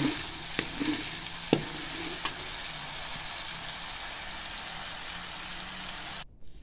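Coconut cream cooking down in a steel wok, sizzling steadily as the oil separates from the residue. A metal spatula stirs it, scraping and knocking against the pan a few times in the first couple of seconds. The sizzle cuts off suddenly near the end.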